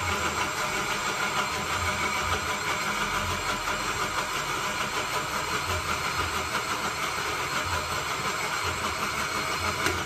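Electric countertop blender running steadily as it grinds a spice paste. It cuts off suddenly at the very end.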